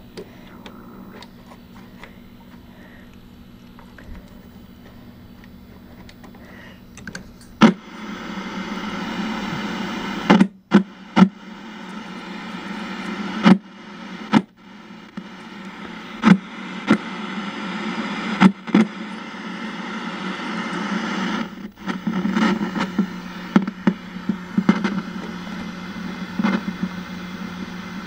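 A vintage tube television's loudspeaker hissing with static: an untuned set with no antenna, its screen full of snow. The set first gives only a low, steady hum; about eight seconds in a loud hiss starts suddenly and keeps going, broken by sharp clicks and a few short dropouts.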